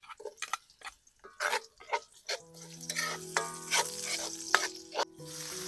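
A cooking utensil knocking and scraping against a pan as food is stirred, with frying sizzle building up from about halfway. Soft background music with held notes comes in at the same time.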